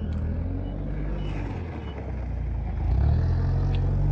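A heavy vehicle's engine running, growing louder about three seconds in. A faint backup-alarm beep repeats about every half second over the first half.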